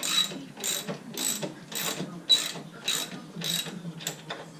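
Hand socket ratchet being worked back and forth on a nut or bolt, its pawl clicking in a burst on each return stroke, about two strokes a second, stopping shortly before the end.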